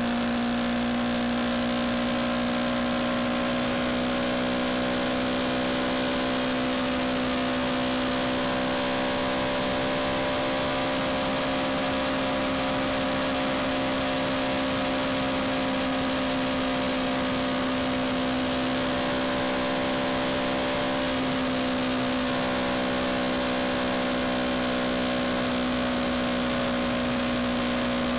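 Yamaha MT-125's 125 cc single-cylinder four-stroke engine running at a steady cruising speed, its note holding a nearly constant pitch, under a steady rush of wind noise.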